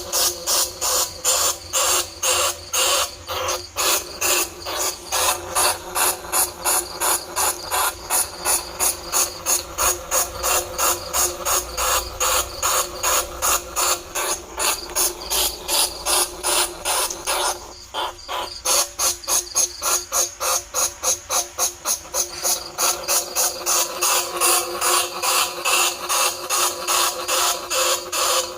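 Bandicoot rat squeaks repeated in a fast, even series, about three to four a second, with a brief pause about eighteen seconds in: a decoy call for luring bandicoot rats and field rats.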